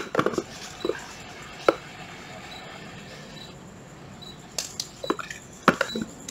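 Light clicks and knocks of hand tools being handled and set down: a few near the start, a quiet stretch, then a cluster of clicks near the end.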